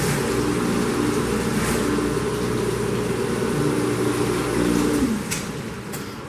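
Hobart LXiH dishwasher running with a steady motor hum and a rushing noise over it. About five seconds in, the motor shuts off and its hum slides down in pitch as it winds down, followed by a couple of faint clicks.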